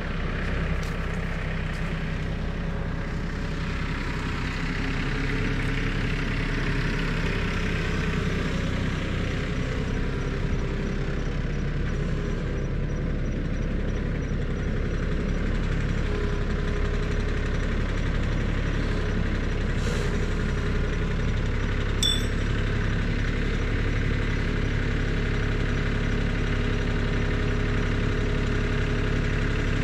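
Farm tractor's engine running steadily, with a couple of brief metallic clinks about two-thirds of the way through.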